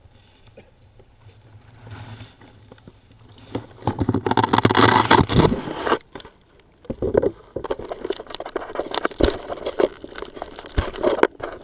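Grass and dry stems rustling and scraping right against an onboard FPV camera's microphone as the camera shifts in the grass. It comes in a loud burst from about three and a half seconds in, then turns to uneven crackling with a few sharp knocks.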